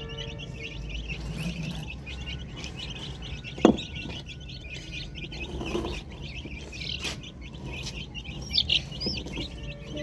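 Dense, continuous chirping of small birds. A sharp snip about four seconds in and a lighter one about three seconds later, from scissors trimming a chick's wing feathers.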